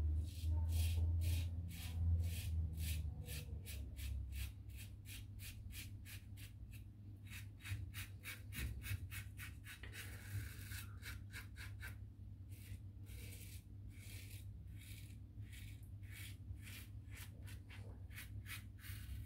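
Short scraping strokes of a Karve safety razor cutting through lathered stubble, about two strokes a second in steady runs, with a brief pause about ten seconds in. A low hum sounds under the first few seconds.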